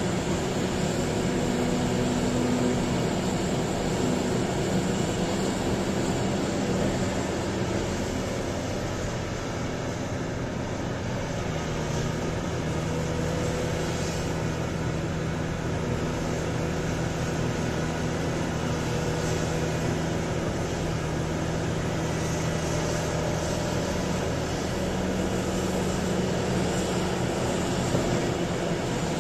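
A Volvo EC950E hydraulic excavator working, its diesel engine running steadily under load. The engine note drops a little about twelve seconds in and rises again near the end.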